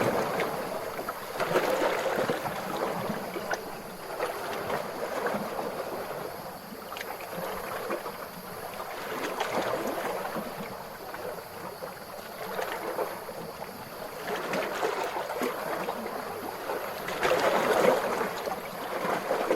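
Small, calm ocean waves washing and lapping, swelling and ebbing every few seconds, with the loudest wash near the end.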